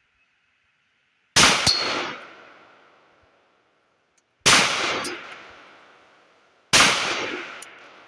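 Three pistol shots from a PSA 5.7 Rock chambered in 5.7x28mm, firing 40-grain full metal jacket rounds. The first comes about a second in, the second about three seconds later and the third two seconds after that. Each rings out in a long echo, and a faint click follows each shot.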